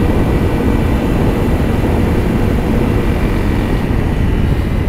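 Honda CRF300L's single-cylinder engine running steadily under way, buried in heavy wind rush on the microphone.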